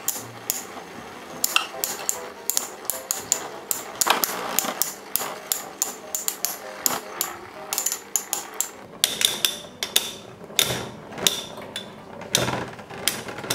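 Two Infinity Nado 3 metal spinning tops clashing in a plastic stadium: a fast, irregular run of sharp metallic clacks as they strike each other again and again.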